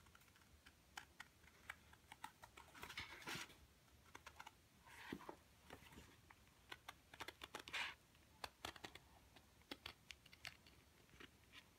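Scissors cutting yellow cardstock, a faint run of short, irregular snips as a small curved hole is cut out.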